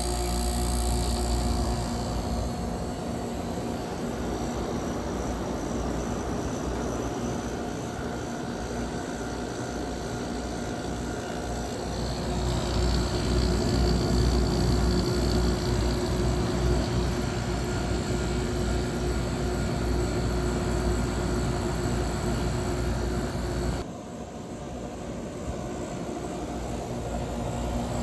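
Whirlpool 14,000 BTU air conditioner running just after startup: a steady fan rush with a low hum. About twelve seconds in it grows louder and a steady tone joins it, and near the end the sound drops abruptly to a lower level.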